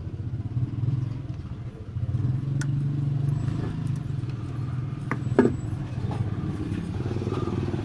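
Steady low motor hum from a nearby machine running. Over it come a few light metallic clicks and one louder clank a little past five seconds in, as the camshaft timing sprocket is fitted onto the timing chain.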